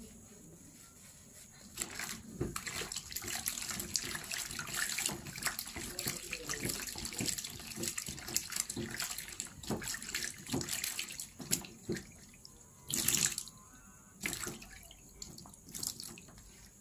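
Tap water running and splashing into a sink in an irregular stream from about two seconds in until about twelve seconds, then two short, louder splashes.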